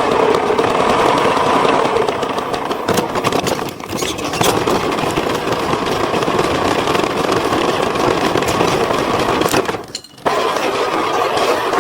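A motor running steadily, dipping briefly about four seconds in and cutting out for a moment near the end.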